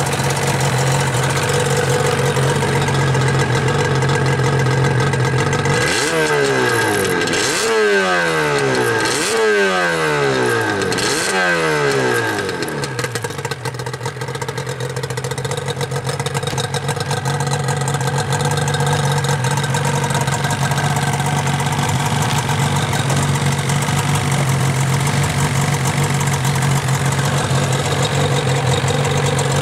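Yamaha R1-Z's 250 cc two-stroke parallel-twin engine idling through its stock twin silencers. About six seconds in it is blipped four times in quick succession, each rev rising sharply and falling back, and then it settles back to a steady idle.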